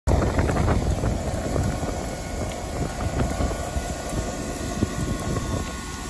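Wind buffeting the microphone over a steady low rumble from standing locomotives, with faint steady tones in the background.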